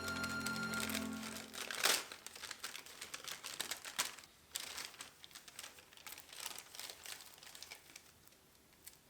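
Background music for about two seconds, then dry, irregular crinkling and rustling with light clicks as onions are handled.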